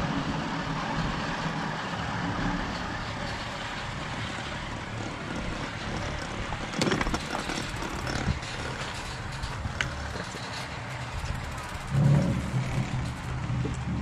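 Chairlift running: a steady mechanical drone with a sharp knock about seven seconds in as the chair comes into the top station, then a louder low rumble near the end.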